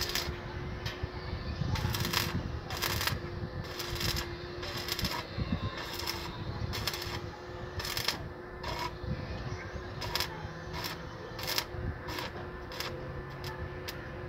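Stick (shielded metal arc) welding on steel square tubing: the arc crackles and pops irregularly over a faint steady hum.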